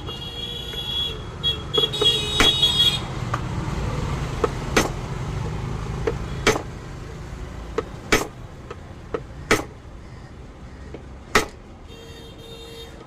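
A hammer strikes a screwdriver set against a seized nut on a mixer grinder motor, giving sharp metal knocks every second or two, to shock the jammed nut loose.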